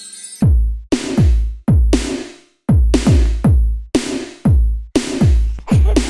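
Electronic music beat from a drum machine: deep kick drums with a falling pitch, each topped by a hiss, a little under two beats a second.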